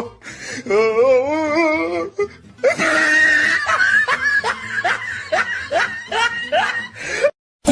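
Comic laughter sound effect over music: a warbling, wavering laugh, then a run of short rising laugh calls about two a second. It cuts off abruptly near the end.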